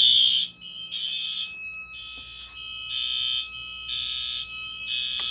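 Fire alarm horns sounding in alarm after a manual pull station was pulled: high, harsh blasts pulsing about once a second, with a steady high tone running beneath.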